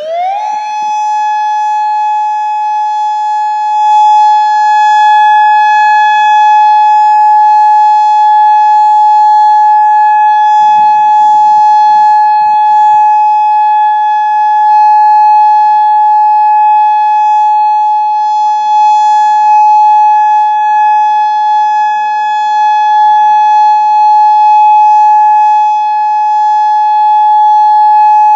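Federal Signal Modulator 4016B electronic tornado siren sounding its steady Alert signal for its scheduled test. It opens with a quick rising glide, then holds one unbroken high tone, growing louder over the first few seconds.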